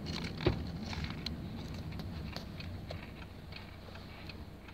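Crunchy cream-and-onion snack being eaten close to the microphone: scattered small crunches and clicks, one sharper about half a second in, over a low background rumble that slowly fades.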